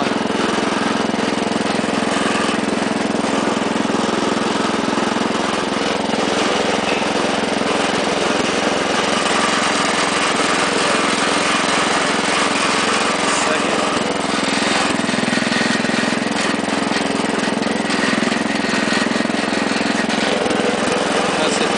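1961 Wheel Horse garden tractor's small engine running steadily under way, its note holding even throughout.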